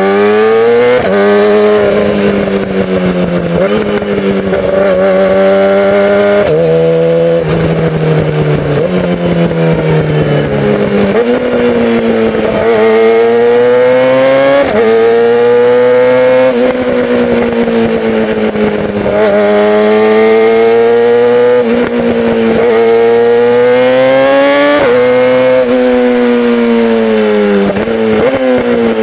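Yamaha YZF-R6's inline-four engine through a Yoshimura full-system exhaust, accelerating and easing off through the gears in traffic. Its pitch climbs and drops back repeatedly with each shift, then falls steadily near the end as the bike slows.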